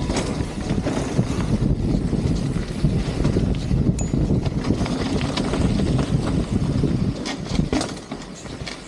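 Wind rushing over an action-camera microphone, mixed with the rumble and rattle of a mountain bike rolling down a dirt trail. It quietens about seven seconds in.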